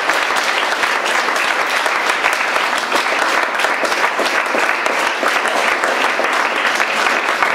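Loud, dense applause from a theatre audience.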